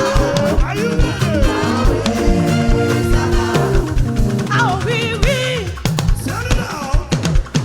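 Upbeat praise music with a drum kit keeping a steady beat, sustained keyboard or instrument chords, and voices singing or ad-libbing over it.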